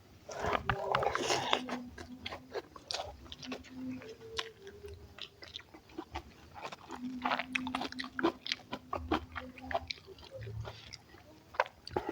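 Close-up mouth sounds of a person eating: irregular chewing, smacking and crunching as he bites and chews a spicy home-cooked meal.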